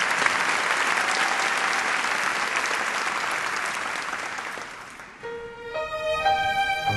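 Crowd applauding, fading out about five seconds in; then soft instrumental music begins with a few sustained notes.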